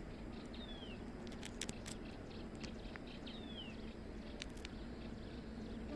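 Outdoor ambience: a bird gives a short falling whistle three times, about two seconds apart, over a steady faint hum. A few sharp clicks come about a second and a half in and again past four seconds.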